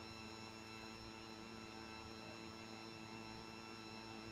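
Faint steady electrical hum with a light hiss: the background noise of the recording microphone, with no other sound.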